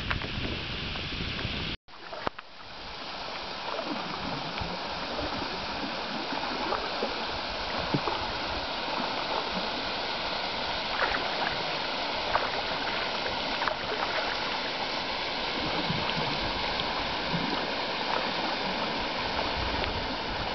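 Steady rush of flowing river water, heard from a dugout canoe, with faint clicks and splashes here and there. The sound drops out abruptly for a moment about two seconds in.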